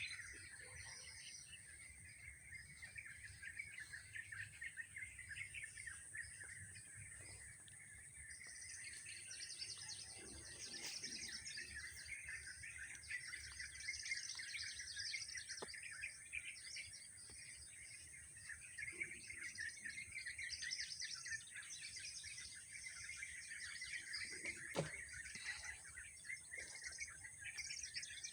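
Many small birds chirping and calling over one another in a continuous morning chorus, busier from about nine seconds in. A steady high-pitched hiss runs beneath it.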